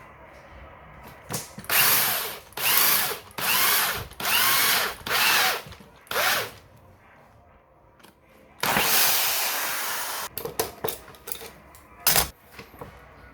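Power drill run in a series of short trigger bursts, its motor pitch rising and falling within each. A longer run follows about nine seconds in, then a few clicks and one last short burst.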